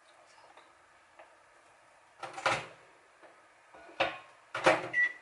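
A kitchen cabinet below the counter being opened and shut, with a few sharp knocks and clatters: one group about two and a half seconds in and two more near the end.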